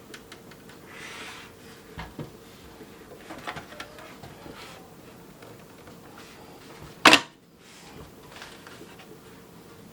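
A PC case being handled: scattered light plastic clicks and knocks, then one loud sharp snap about seven seconds in.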